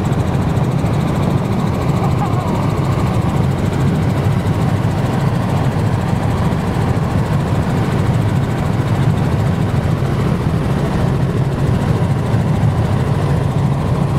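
Helicopter in flight, heard from on board: a loud, steady drone of the rotor and engine.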